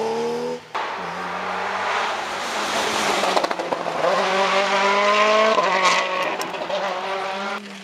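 Rally car engine pulling hard out of a loose-surface corner, its pitch climbing and then dropping at an upshift about five and a half seconds in, with tyre noise underneath. The first second holds a different car's engine, cut off abruptly.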